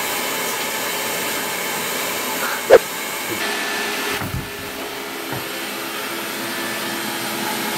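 Xiaomi Roborock robot vacuum running, a steady motor and fan whine with suction noise. About halfway through there is one short, loud squeak.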